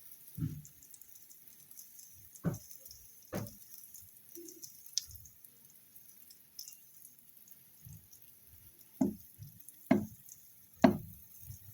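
Thick pancake batter plopping from a spoon into a pan: about six soft, wet plops and knocks, spaced irregularly and loudest near the end.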